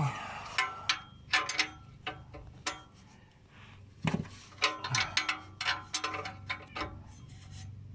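Irregular metallic clicks, clinks and knocks of hand tools working on exhaust hardware during a muffler installation, some strikes ringing briefly.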